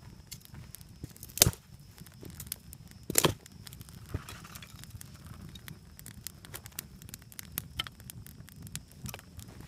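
Wood campfire crackling, with scattered small pops throughout and two much louder sharp cracks, about one and a half and three seconds in.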